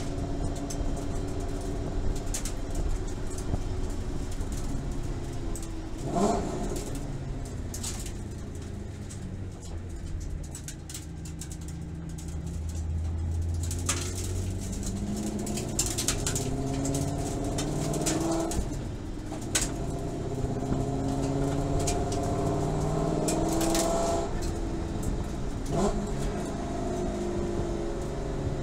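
Inside the cabin of a 2014 Ford Boss 302S: the 5.0-litre V8 runs at low road speed, slows, then pulls up through the revs in second gear. The rear differential, on its new ring and pinion, runs without the howl it had under engine braking. Several sharp knocks and rattles are heard along the way.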